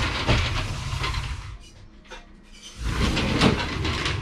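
Curved sliding shower door rolling and rubbing along its track, pushed one way for about a second and a half, then back again from about three seconds in, ending in a knock as it shuts.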